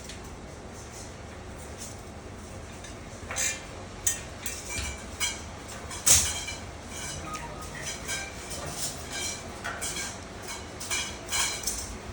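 Metal parts of a steel rack knocking and clinking together during assembly: a string of sharp knocks with brief metallic ringing, starting about three seconds in, the loudest one about halfway through.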